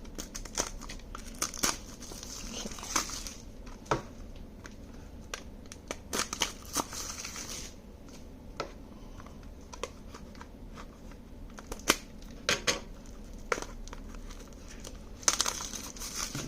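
Plastic wrap being torn and peeled off small cardboard blind boxes: crinkling in a few stretches, with scattered sharp clicks and taps as the boxes are handled.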